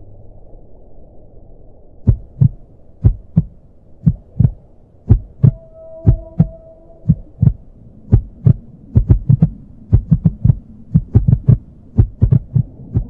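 Electronic ambient soundtrack: a low hum, then from about two seconds in deep heartbeat-like thuds, mostly in pairs about once a second, crowding closer together in the second half, with a few faint held tones in the middle.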